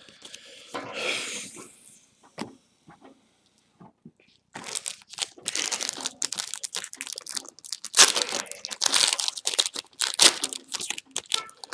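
A trading-card booster pack wrapper being torn open and crinkled: a short rip about a second in, a few small clicks, then dense crinkling from about halfway on.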